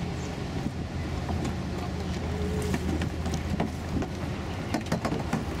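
Steady low outdoor rumble and hum with wind on the microphone, and a few faint scattered clicks.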